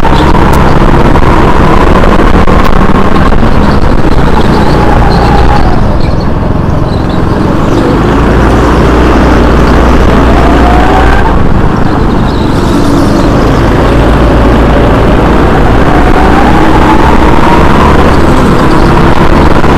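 Go-kart engine running hard, its pitch climbing under acceleration and falling away when the throttle is lifted for corners, with marked drops about six seconds in and again just before halfway.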